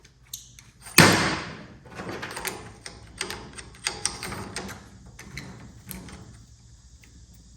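Hands handling and fitting metal parts and a bolt on a CNC plasma table's torch holder: one loud knock about a second in, then scattered clicks and rattles.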